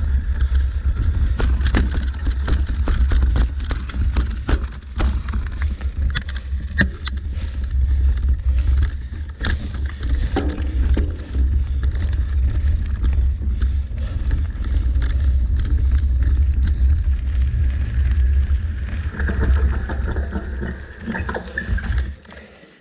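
Mountain bike ridden fast down a dirt forest trail: heavy wind rumble on the microphone, tyre noise on dirt, and frequent sharp knocks and rattles from the bike over roots and rocks. The noise drops away just before the end as the bike slows.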